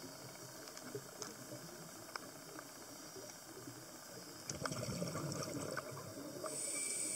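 Underwater audio of a scuba dive: a steady hiss with scattered faint clicks, then a louder bubbling rush about four and a half seconds in, typical of a diver's exhaled bubbles. Near the end comes a high hiss like a breath drawn through the regulator.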